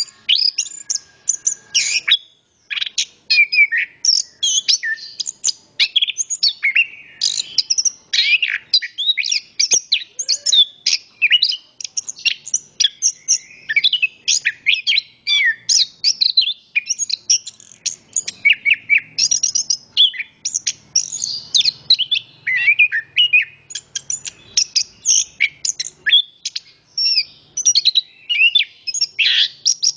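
Chestnut-capped thrush (anis kembang) singing at length: a fast, varied stream of high chirps, trills and slurred whistles with hardly a break.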